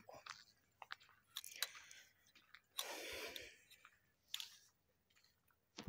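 Near silence with faint irregular crunches and clicks of footsteps on a rough road and phone handling, and a soft noise about three seconds in.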